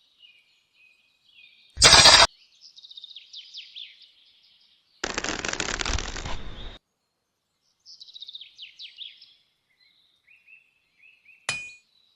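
Birds chirping in quick runs of falling notes. A loud half-second burst of noise cuts in about two seconds in, a harsher noisy stretch of nearly two seconds comes in the middle, and a sharp click sounds near the end.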